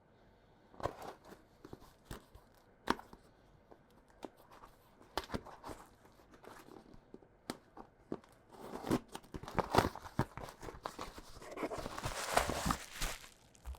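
Packaging being handled and opened: scattered taps and knocks, then rustling, crinkling and tearing of wrapping over the last few seconds.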